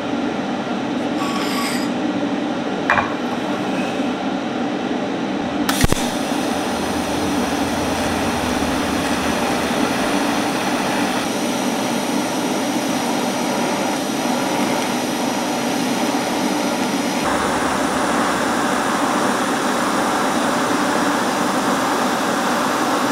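TIG welder arc on steel plates. It starts with a sharp crack about six seconds in, then gives a steady high hiss for the rest of the weld, shifting slightly twice. A steady low hum runs underneath throughout.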